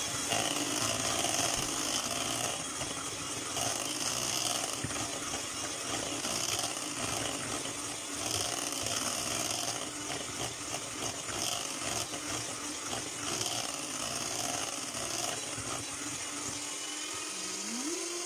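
Electric hand mixer running steadily, its twin beaters whipping fresh cheese and cream together in a plastic bowl.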